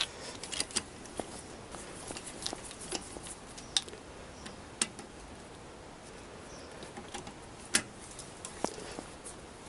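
Scattered light metallic clicks and ticks of a speed brace and socket being cranked to undo bolts, with a sharper click a little before the end.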